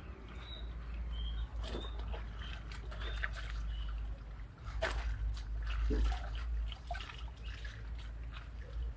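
Water sloshing, splashing and dripping in a basin as a white shirt is scrubbed and lifted out by hand during laundry washing.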